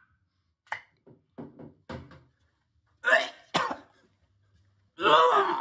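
A man coughing and clearing his throat in short separate bursts, with a longer, louder burst near the end as he drinks from a shaker bottle.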